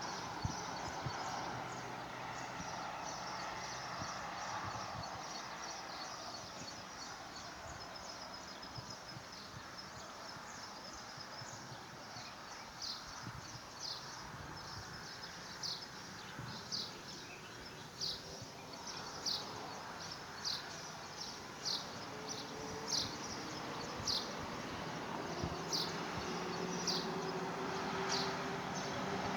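Steady background noise, with a bird repeating a short, high, falling note about once a second from around the middle on.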